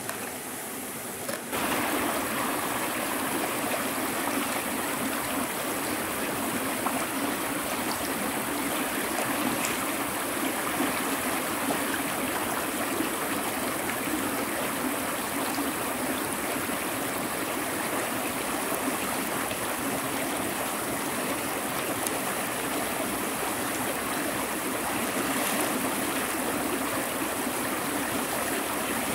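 River water rushing steadily, stepping up in level about a second and a half in and then holding even.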